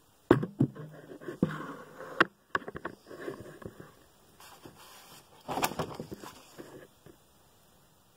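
Irregular light knocks, clicks and rustling of handling, with a sharp knock about two seconds in and a longer scraping rustle a little past five seconds.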